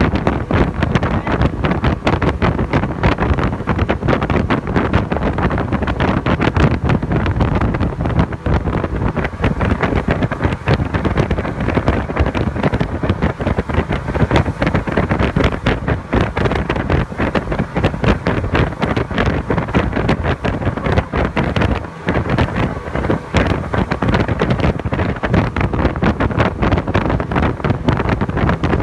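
Wind buffeting the microphone aboard a speedboat running at speed, with the boat's engine and rushing water mixed in underneath.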